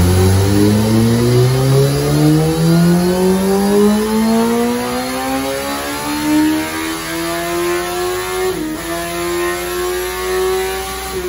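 Kawasaki ZX-14R inline-four engine, breathing through a Two Brothers slip-on exhaust, making a wide-open-throttle pull on a chassis dyno. Its pitch climbs steadily as the revs build, with a brief dip about eight and a half seconds in before it rises again.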